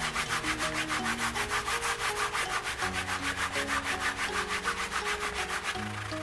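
Fast, even back-and-forth rubbing of a white pad over vegetable-tanned leather, polishing the surface after Tokonole. The scrubbing strokes come several a second without a break, and soft background music plays under them.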